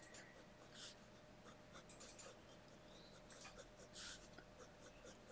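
Faint scratching of a fineliner pen tip on paper in short, irregular strokes.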